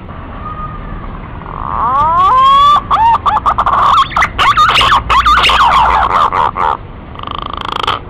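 Male green pigeon (punai) calling: loud, wandering whistles that glide up and down in pitch, starting about a second and a half in, building into a dense warbling run, and breaking off near the end.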